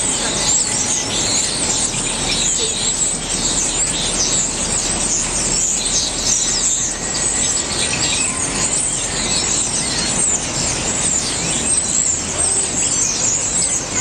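A large flock of birds in a tree calling all at once: a dense, unbroken chorus of many overlapping high, quick chirps and sweeping calls.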